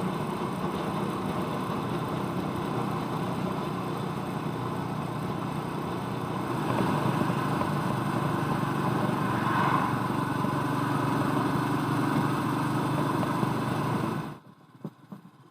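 Royal Enfield Meteor 350's single-cylinder engine running steadily. It grows louder about halfway through, then cuts off suddenly near the end.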